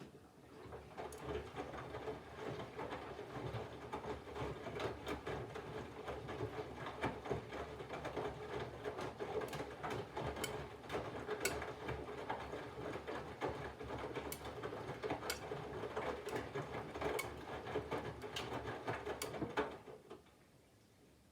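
Candy GVF4 front-loading washing machine's drum turning and tumbling the laundry during the water-heating phase of the wash: a steady motor hum with clatter and scattered sharp clicks. It starts suddenly and stops about twenty seconds in, as the drum pauses.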